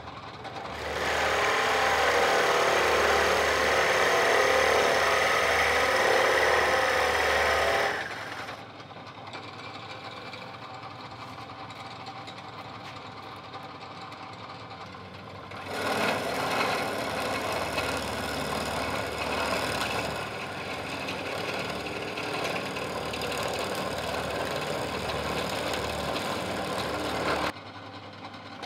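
Bench drill press running while its bit bores into spalted beech, with a steady motor hum underneath. The cutting is loud from about a second in to about eight seconds, then the press runs more quietly. A second spell of drilling starts at about sixteen seconds and cuts off suddenly shortly before the end.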